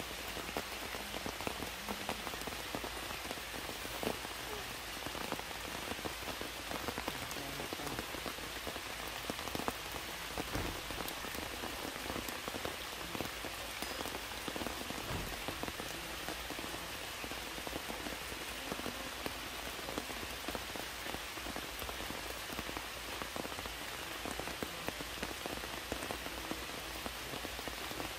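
Heavy rain falling steadily, with scattered individual drop hits.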